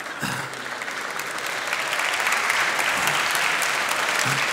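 Audience applauding, the clapping swelling about a second and a half in and holding steady.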